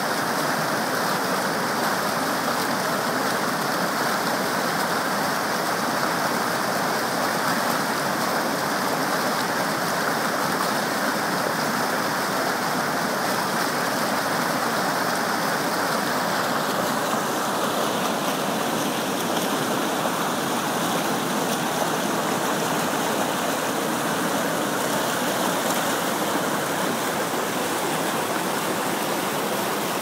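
Waterfall cascade: white water rushing over smooth rock close by, a loud, steady, unbroken rush of water.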